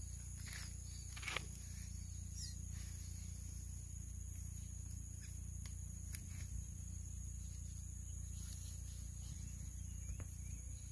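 Steady high-pitched chorus of insects over a low outdoor rumble, with a few faint rustles and clicks from handling; one is a little louder about a second in.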